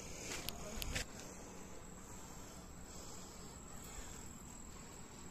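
Insects shrilling in one steady high-pitched note, with a few sharp clicks in the first second.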